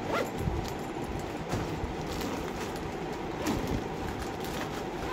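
Soft handling noises from a fabric backpack, a few light knocks and rustles, over a steady background hum.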